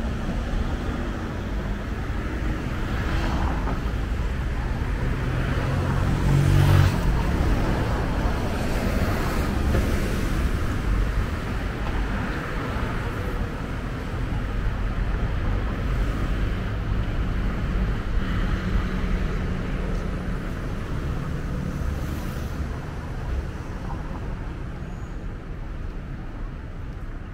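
Road traffic: a steady rumble of vehicles driving along the street, with one vehicle passing close and loudest about six to seven seconds in.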